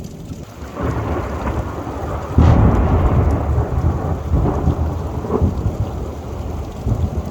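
Thunder rumbling over rain, with a sudden louder clap about two and a half seconds in that slowly rolls away.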